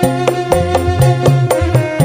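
Dangdut music played through a sound system: a steady beat of drum strokes, about four a second, over deep bass notes and sustained instrument tones.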